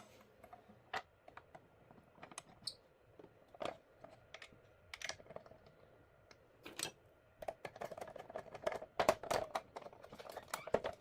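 Scattered light clicks and taps of a miter saw's blade guard and fittings being handled and refitted by hand, coming thicker and faster in the last few seconds.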